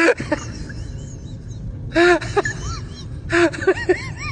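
A dog whining in short rising-and-falling whimpers, in two bursts, each opening with a loud breathy huff.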